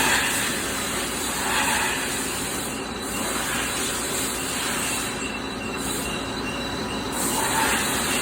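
An ISCAR SumoCham replaceable-head drill cutting SUS316 stainless steel on a CNC lathe: a steady, even drilling noise with faint high-pitched tones running through it.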